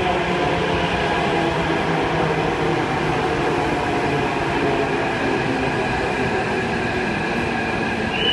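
Hyderabad Metro electric train rolling alongside the platform as it pulls into the station: a steady rolling rumble with faint steady whining tones, easing slightly, and a high squeal starting right at the end.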